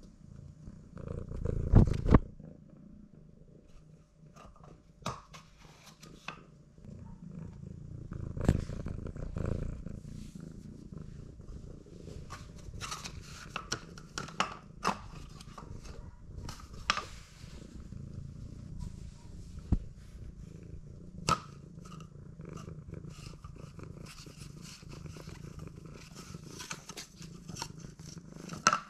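Domestic cat purring steadily, with scattered clicks and rustles as it bats at a paper ball in a cardboard toilet roll. There are louder thumps about two seconds in and again about eight seconds in.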